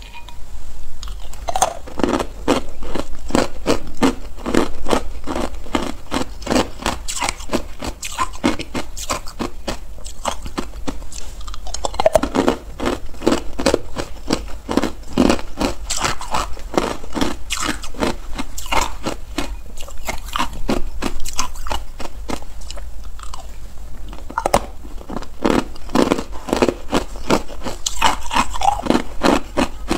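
Hard green matcha ice cubes being bitten and chewed, a rapid run of loud, sharp crunches, several a second, with two short lulls.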